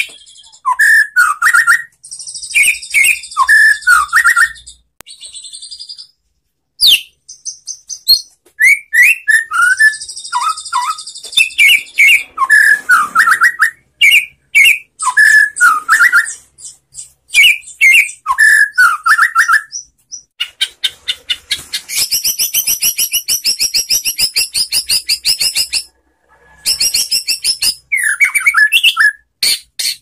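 White-rumped shama singing: fast, high chattering trills alternating with short whistled phrases, with a long rapid rattling run of even notes about two-thirds of the way through.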